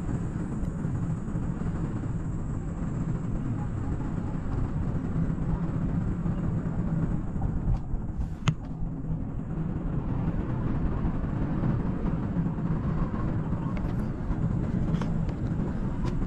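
Steady low rumble of a cable car cabin riding along its haul cable, with one sharp click about eight and a half seconds in and a few faint ticks near the end.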